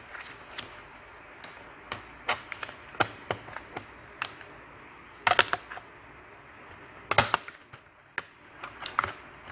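Irregular plastic clicks and clacks from a laptop keyboard being pried out of its bezel with a plastic spatula, its keys rattling under the hands. The loudest clusters come about five and seven seconds in.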